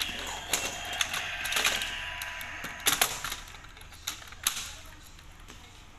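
Sharp plastic clicks and taps as hands press and handle a Kamen Rider Zi-O electronic toy vehicle, about seven in the first five seconds, the loudest pair about three seconds in.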